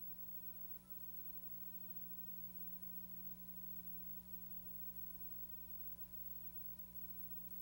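Faint steady electrical hum with an even hiss and no other sound: the noise floor of a blank stretch of recording.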